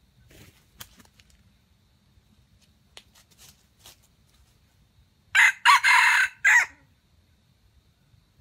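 Red junglefowl rooster crowing once, a short, clipped crow in about four quick parts lasting about a second and a half, past the middle. A few faint ticks come before it.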